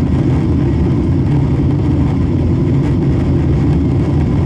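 Boeing 777-300's jet engines and rushing airflow heard inside the passenger cabin in flight: a steady, loud, deep rumble that does not change.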